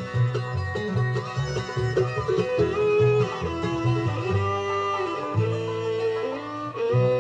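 Bluegrass-style background music: an instrumental passage of picked banjo and guitar with no singing, settling onto a held chord near the end.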